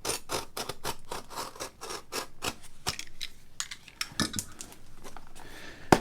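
A package being opened by hand: an irregular run of scratching and ripping from the packaging, with a sharp snap near the end.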